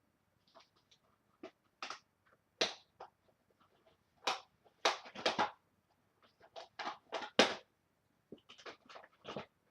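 Cardboard and plastic toy-blaster packaging being handled and pulled open: irregular sharp clicks, knocks and short crinkles, the loudest about halfway through and again near the end.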